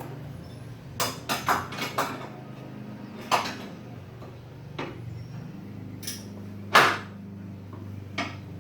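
Metal hand tools clinking and clanking against metal, about nine sharp knocks: a quick cluster in the first two seconds, then single ones spread out, the loudest nearly seven seconds in.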